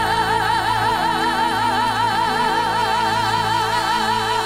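Two women's voices holding a long, high sung note with wide vibrato over sustained band accompaniment, the climactic final note of a ballad duet.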